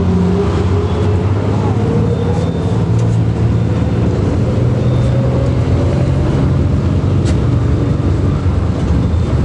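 City bus engine and road noise heard from inside the cabin while riding: a steady low hum with a faint whine that slowly rises in pitch, and a few light clicks.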